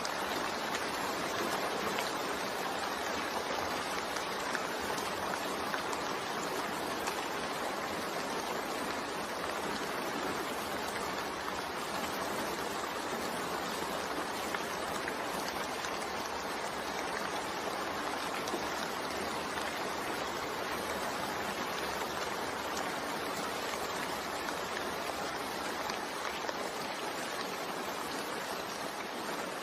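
Continuous steady rain, an even hiss of falling rain with no breaks or changes.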